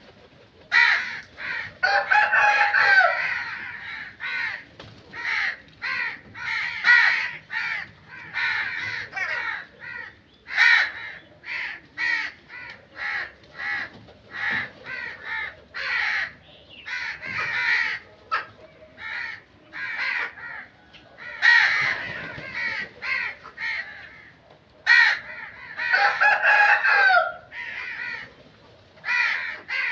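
Crows cawing: a steady run of short caws, one or two a second, with a longer drawn-out call about two seconds in and another near the end.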